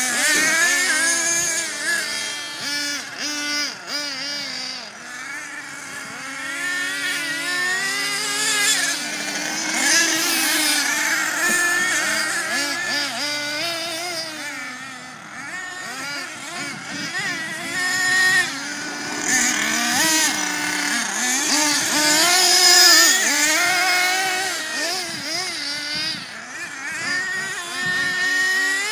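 Small nitro (glow-fuel) engines of two RC monster trucks, an HPI Savage X and an Ansmann Virus, racing: a high buzzing whine that revs up and falls back again and again as they accelerate and slow, the two engines' pitches sometimes overlapping.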